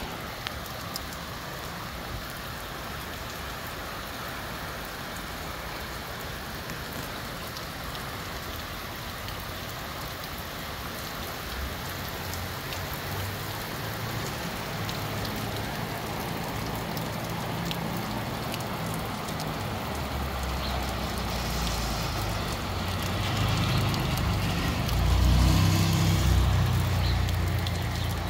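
Moderate to heavy rain shower falling steadily: a dense hiss with fine patter of drops. In the last third a deeper rumble and a louder hiss swell up, peaking a few seconds before the end.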